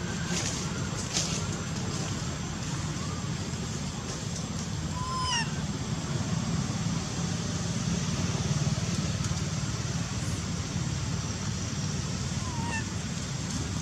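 Steady low outdoor rumble, like distant traffic, with two short high chirping calls that glide in pitch, one about five seconds in and one near the end.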